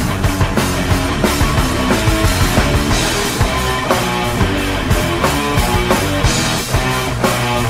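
Background music with a fast, steady beat.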